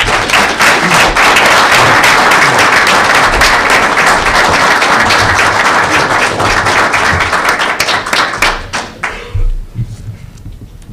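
Audience applauding: a roomful of people clapping, dying away about nine seconds in.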